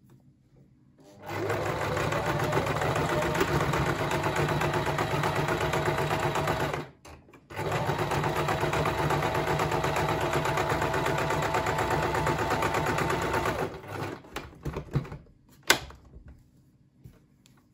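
Singer Tradition 2282 electric sewing machine stitching a straight seam through two layers of fleece, running at a steady speed in two long runs with a brief stop between them. After the machine stops near the end come a few clicks and knocks, one sharper than the rest.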